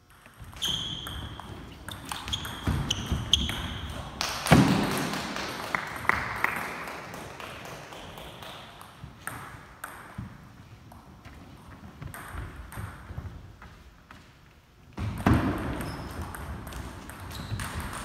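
Table tennis rallies: the ball clicks and pings off paddles and table in quick runs. The first rally runs for about the first four seconds and ends with the loudest hit, followed by a lull with only a few scattered bounces. Another rally starts about fifteen seconds in.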